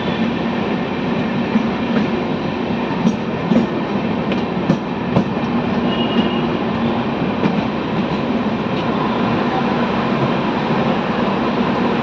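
Shatabdi Express train running on the track: a steady rumble with irregular sharp clacks of the wheels over rail joints through the first half or so.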